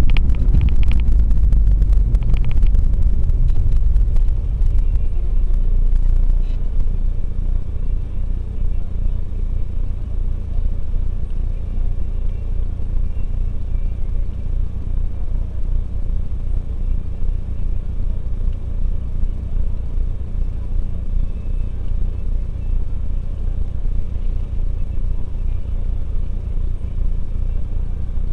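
In-cabin running noise of a Renault Megane 1.5 dCi four-cylinder turbodiesel car driving slowly on a rough road: a steady low rumble with knocks and rattles over the first few seconds. About six seconds in it eases to a steadier, slightly quieter low drone as the car creeps along.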